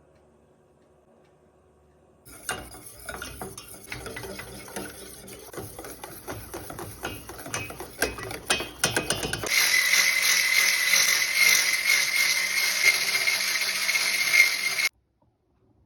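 Kitchen utensil stirring and clinking in a bowl, a quick run of irregular clicks and scrapes. After that comes a louder, steady hiss with a thin high tone, which cuts off suddenly.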